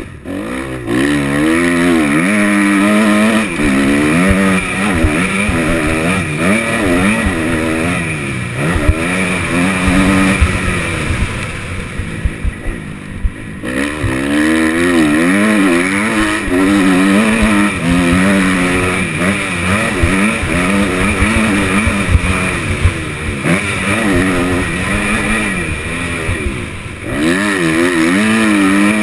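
2013 Kawasaki KX250F's single-cylinder four-stroke engine being ridden hard, its revs rising and falling again and again through the corners and bumps. About halfway through the throttle eases off briefly before it revs up again.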